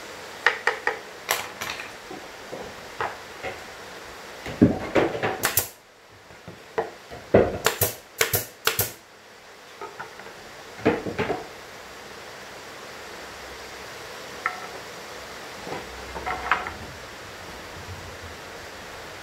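Sharp knocks and clatter of plywood parts being handled and fitted together, in bursts through the first half, the loudest a run of hard cracks around eight to nine seconds in. After that, only a few light taps.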